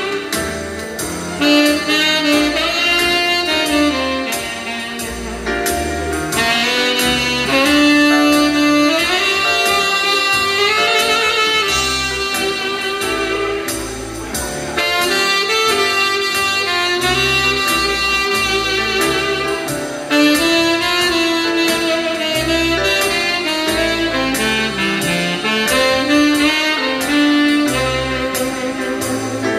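Saxophone playing a flowing melody over a musical accompaniment with a bass line and a steady beat.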